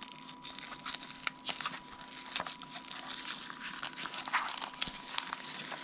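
Plastic packaging bag being crinkled and torn open by hand, a dense run of irregular crackles.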